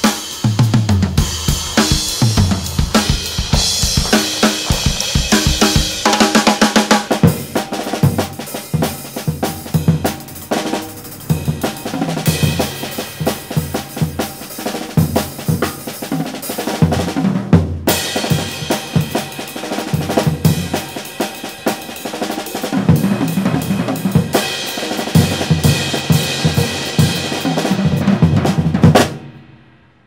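Solo drum kit playing busy grooves on kick drum, snare and cymbals, with a brief break about two-thirds of the way through. It cuts off suddenly near the end.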